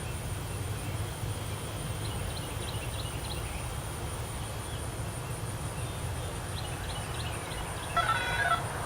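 Low rumbling outdoor background noise with faint, short high chirps scattered through it, and a brief burst of pitched notes near the end; no siren tone sounds.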